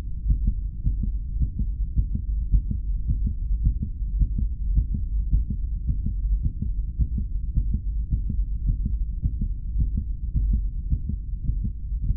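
Heartbeat sound effect on a film soundtrack: a quick, steady low pulse over a deep rumble.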